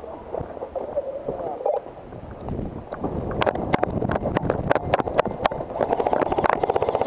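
Airsoft guns firing: scattered sharp snapping shots start about two and a half seconds in, building to a rapid full-auto burst near the end, over rustling movement and wind on the microphone.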